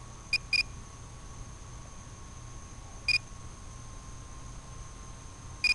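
Short electronic beeps, each a single high tone: two quick ones near the start, another about three seconds in and one more at the end, from the radio-control or FPV gear. Beneath them runs a steady faint hum.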